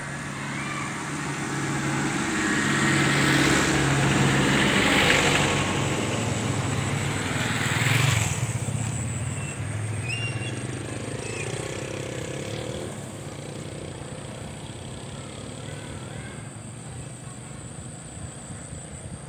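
Vehicles passing close on a road: an engine hum and tyre noise build to two pass-bys, about five and eight seconds in, then fade to a quieter, steady hum.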